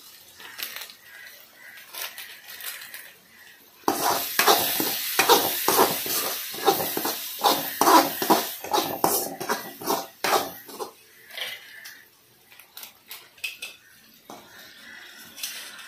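Steel ladle stirring and scraping frying onion-tomato masala in a metal kadai, with quick clinks of metal on metal over a sizzle. It starts abruptly about four seconds in, is loudest for about seven seconds, then gives way to a few quieter knocks.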